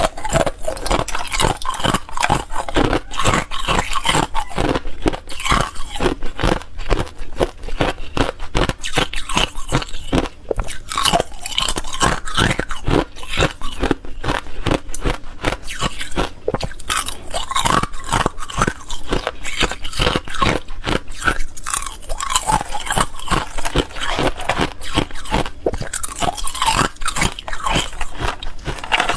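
Close-miked crunching of clear ice chunks being bitten and chewed, a dense, unbroken run of sharp cracks.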